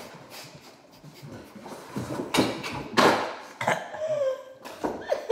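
A person gasping and panting for breath after chugging a fountain drink: a few loud breathy gasps about two, three and three and a half seconds in, then a short voiced groan.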